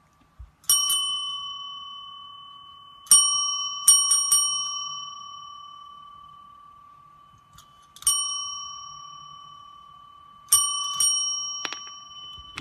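A small metal bell struck about ten times in four groups, some strikes in quick runs of two or three, each ring fading slowly. A dull thump comes at the very end.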